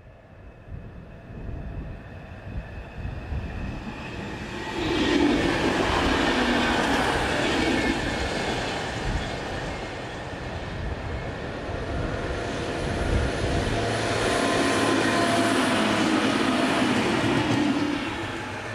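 A DB Class 612 diesel multiple unit passing on the rails: engine drone and wheel noise build up, turn loud about five seconds in, ease a little, then swell again before falling away near the end.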